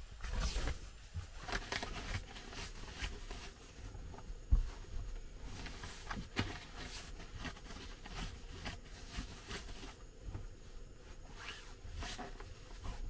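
Irregular rustling and clicking of things being handled at close range, with one sharp thump about four and a half seconds in.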